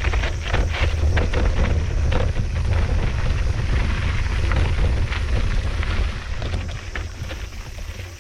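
Mountain bike descending a dirt trail: wind rumbles on the microphone while the tyres, chain and frame clatter with many quick knocks over the bumpy ground.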